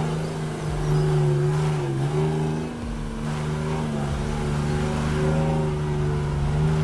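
Heavy vehicle engine running steadily under load, its pitch dipping briefly about two seconds in and then holding.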